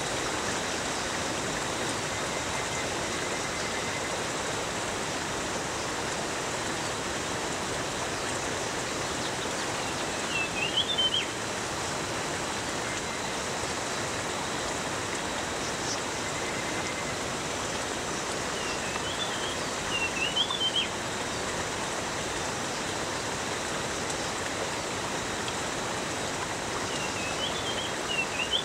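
Steady rushing of a forest stream, with a small bird's short warbling call phrase three times, about ten seconds apart.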